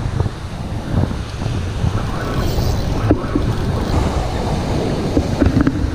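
Wind buffeting the microphone over the steady wash of surf on a beach, with a few small knocks partway through and near the end.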